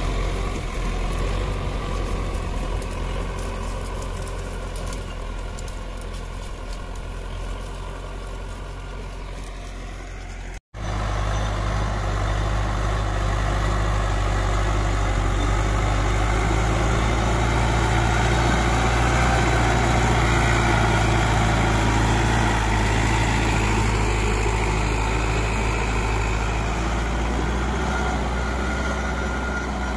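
Sonalika RX 55 tractor's diesel engine running steadily under load as it pulls a two-bottom reversible mouldboard plough through the soil. The sound cuts out for an instant about ten seconds in, then the engine carries on a little louder.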